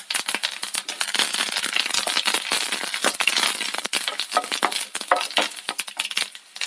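Curry leaves, mustard seeds and dried red chillies spluttering in hot coconut oil: a fast, irregular crackle of small pops, the tempering (tadka) stage of a Kerala stir-fry. The popping thins out near the end.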